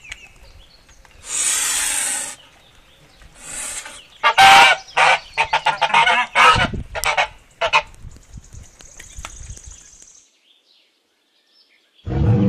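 Domestic white goose honking in a quick run of short calls, with two breathy noisy sounds before them. Near silence for about two seconds near the end, then a yak's low grunting call begins.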